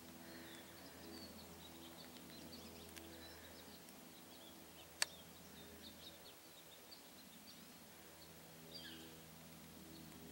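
Quiet forest ambience with faint, scattered small-bird chirps and a low steady hum underneath. A single sharp click comes about halfway through.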